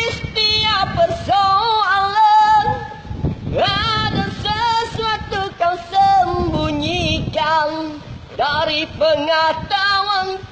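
A man singing unaccompanied in a high voice, in phrases with wavering held notes and short breaks between them.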